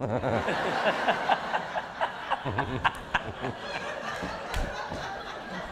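Audience laughter breaking out suddenly in a hall, mixed with the laughing of the two people on stage, slowly easing off.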